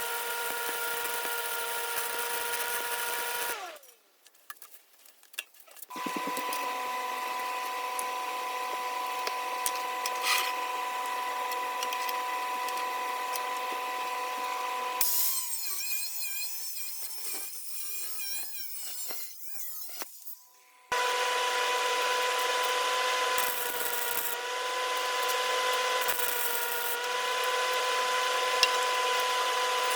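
Electric power tool running with a steady high whine and a grinding hiss. It stops about four seconds in and winds down, starts again, goes quieter and uneven for a few seconds past the middle, then runs steadily again.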